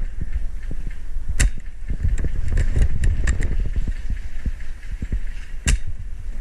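Irregular low thumps and knocks of movement on a body-worn camera's microphone, with two sharp cracks, one about a second and a half in and one near the end.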